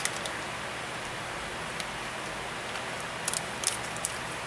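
A few faint crinkles and snips as a foil blind-bag package is handled and cut open with scissors, over a steady background hiss.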